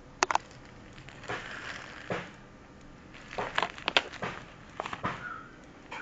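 Scattered clicks and short rustles of something being handled, with three quick clicks at the start, a cluster in the middle, and a brief high tone about five seconds in.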